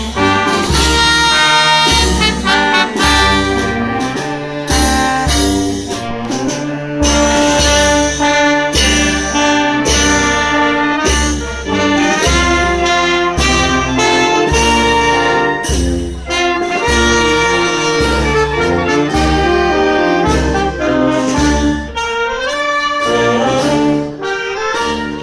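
Brass band playing a march, brass chords over a steady bass drum beat of about two a second, with cymbal crashes.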